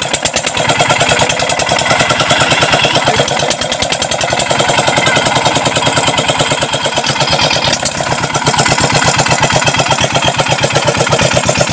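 A 25 HP single-cylinder Peter stationary diesel engine running, firing with a fast, even beat.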